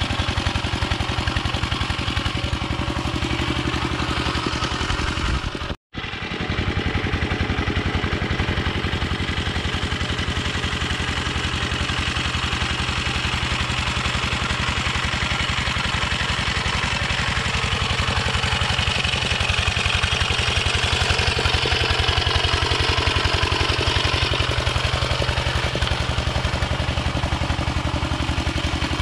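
Single-cylinder diesel engine of a Yanmar two-wheel hand tractor running steadily with a rapid, even chug as it pulls a harrow through a flooded rice paddy. The sound cuts out for a moment about six seconds in.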